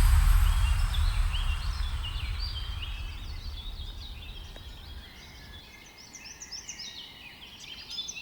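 A busy chorus of small birds chirping, with many quick high chirps and trills overlapping, while electronic background music fades out over the first few seconds.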